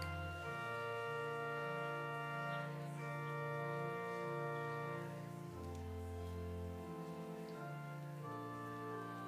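Church organ playing slow, sustained chords that change every second or two, with deep bass notes dropping out and coming back.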